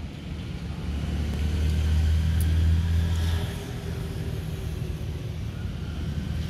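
A motor vehicle passing on a nearby road: a low engine rumble that swells for about two seconds from a second in, then fades, leaving a steady low background hum.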